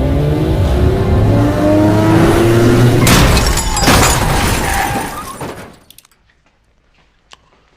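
Film soundtrack of action sound effects and score: a rising, multi-toned drone over heavy vehicle-like noise, broken by a loud crash about three seconds in. The sound then fades quickly to quiet, with a few faint ticks.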